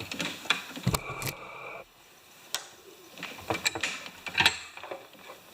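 A few light clicks and taps of a plastic recoil-starter pull handle and rope being handled. A steady background hiss cuts off a little under two seconds in.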